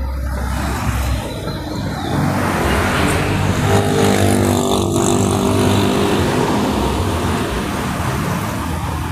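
A motor vehicle engine passes close by, swelling about three seconds in and fading a few seconds later, over a steady rush of outdoor noise.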